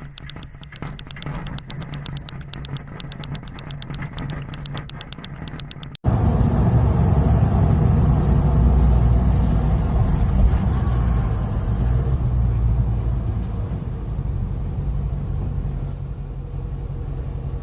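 Objects rattling with rapid, evenly spaced clicks during earthquake shaking. After a cut about six seconds in, a loud, steady low rumble takes over.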